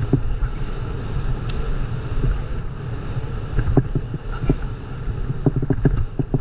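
Wind buffeting the microphone over the steady rumble of a bicycle riding a rough trail at speed, with scattered knocks and rattles from the bike as it jolts over bumps.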